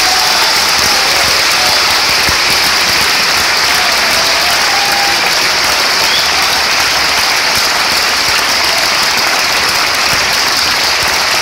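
Concert audience applauding steadily at the end of a song.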